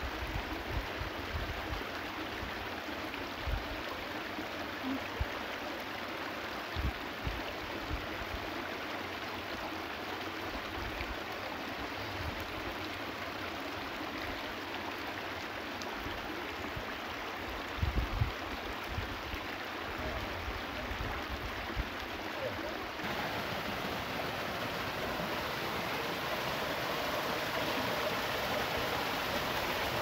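Shallow mountain stream running over stones, with occasional low thumps. About two-thirds of the way in it changes to a louder, closer rush of water spilling down between rocks.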